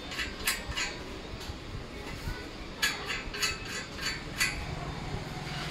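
Metal clinks and taps of a spanner on nuts and bolts while a steel sewing-machine treadle stand is assembled, in two short runs of sharp clicks. A low steady hum comes in near the end.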